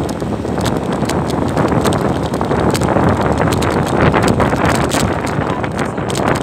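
Wind buffeting the microphone on a moving motorcycle, mixed with engine and road noise and frequent short knocks and rattles.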